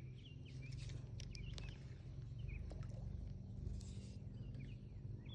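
Frogs calling around a pond: scattered short, high chirping calls, over a low steady hum.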